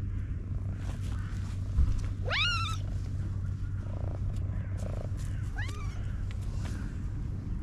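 Black cat purring with a steady low rumble, giving two high, kitten-like meows that rise in pitch: a clear one about two seconds in and a fainter one near six seconds. A brief low bump comes just before the first meow.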